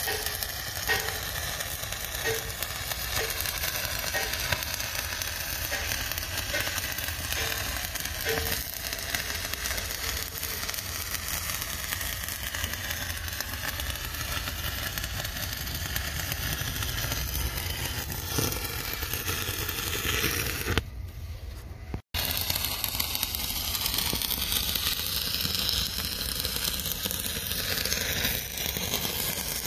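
Stick welding arc on steel pipe, crackling and sizzling steadily as the electrode burns. It breaks off briefly about two-thirds of the way through, then carries on.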